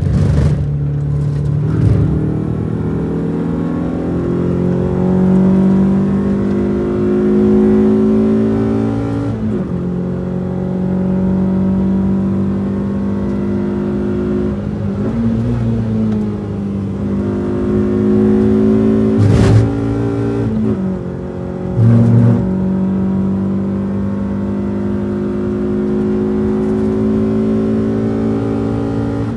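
Renault Twingo RS's four-cylinder engine at racing speed, its pitch climbing hard under acceleration and dropping sharply at gear changes several times. A sharp knock about 19 seconds in and a short louder burst about 22 seconds in.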